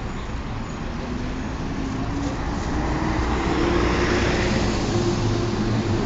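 Volvo B7TL double-deck bus's engine cooling fan making a hoover-like whine, rising in pitch through the first half and then holding steady as it grows louder, over the rumble of street traffic.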